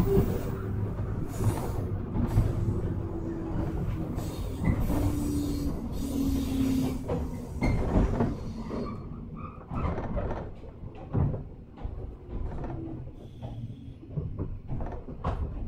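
JR 103 series 1500 electric train heard from inside as it slows to a stop: running noise with a tone sliding steadily downward, fading about nine seconds in, then scattered clunks and knocks as it comes to rest.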